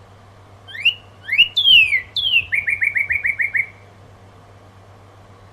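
Northern cardinal singing one song phrase: a couple of rising whistles, a loud down-slurred whistle, then a quick series of about eight short down-slurred notes.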